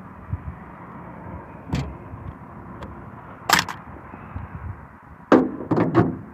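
A few sharp clicks and knocks from a Crosman 1077 air rifle's stock and parts being handled during disassembly. The loudest click comes about three and a half seconds in, and a quick cluster follows near the end.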